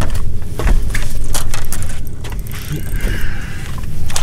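Clattering and knocking of fishing gear and a landing net being handled on a bass boat's deck, over a steady low rumble.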